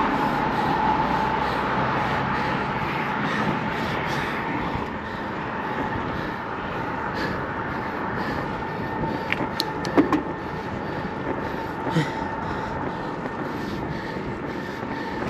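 Road traffic driving past on the bridge roadway beyond the concrete barrier: a steady rush of tyre noise that slowly fades, with a few sharp clicks about ten and twelve seconds in.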